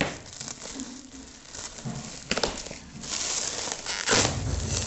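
Packing material crinkling and rustling in irregular bursts as a parcel is unwrapped by hand, busier and louder in the second half.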